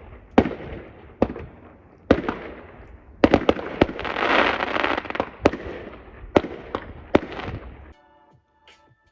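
Fireworks going off: a string of sharp bangs, with a dense crackling burst in the middle, that stops abruptly about eight seconds in. Faint music-like tones follow near the end.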